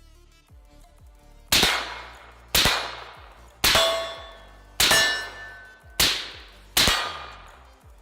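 Six rifle shots fired about a second apart, each a sharp crack with a fading echo; a couple of them are followed by a short ringing tone.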